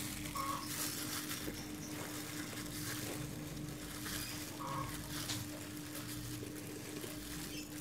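Quiet room tone: a steady low hum with faint scattered soft clicks and rustles while thick chiffon batter is poured into a tube pan.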